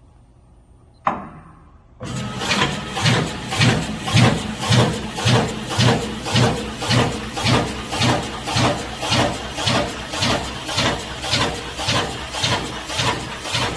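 Watanabe WTD-301 high-speed slicer for chilled meat: a single sharp knock about a second in, then the machine starts and runs with an even, rhythmic stroke, just under two cycles a second.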